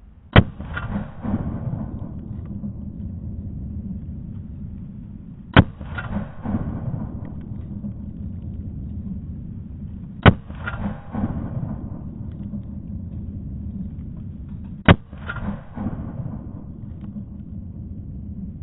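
Four single shots from an AR-pattern rifle with a Madhouse Xtreme Hybrid Compensator, slowly paced about five seconds apart, each followed by a rolling echo, over a steady low rumble.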